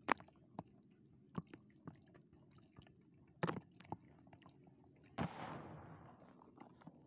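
A dry, crumbly lump of earth crunching and cracking as it is broken apart by hand: about six separate sharp cracks in the first four seconds. About five seconds in comes a sudden rushing splash that fades away, as the crumbs pour into a basin of muddy water.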